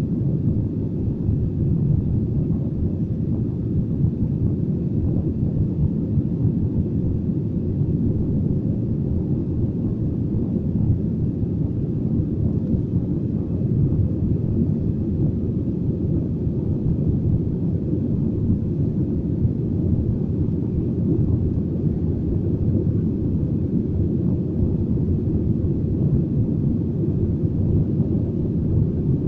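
Airbus A320 cabin noise during the climb, heard from inside the cabin: a steady low rumble of the engines and rushing air with no change in level.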